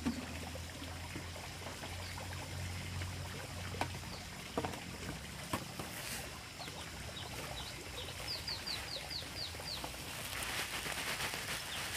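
A bird chirping: scattered short high notes, then a quick run of about eight falling chirps near the end. A few sharp knocks sound in the middle.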